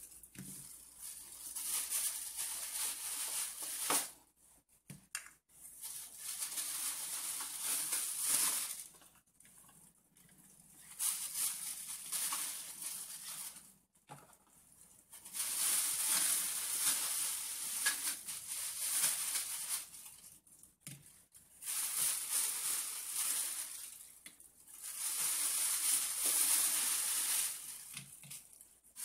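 Rustling in stretches of a few seconds with short quiet gaps between, about six times, as plastic toy groceries are taken out of a reusable shopping tote and set on a table.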